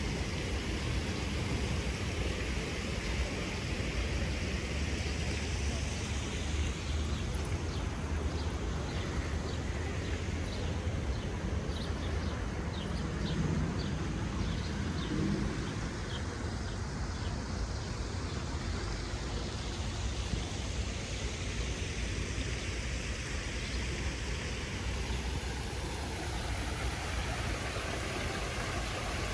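Outdoor city ambience: a steady rumble of road traffic with cars passing, and a brief run of short high ticks about ten seconds in.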